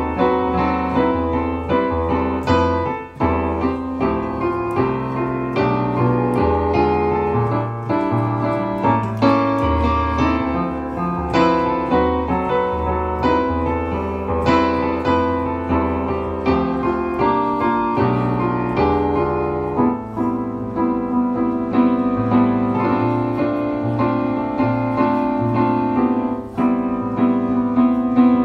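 Digital keyboard with a piano voice played with both hands, improvising on a samba theme: a moving low bass line under chords and a busy right-hand melody, continuous throughout.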